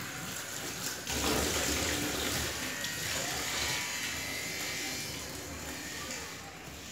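Tap water running onto a stainless-steel sink while a wet sponge rubs the drainboard, rinsing off the scrubbing paste. The rush of water gets louder about a second in.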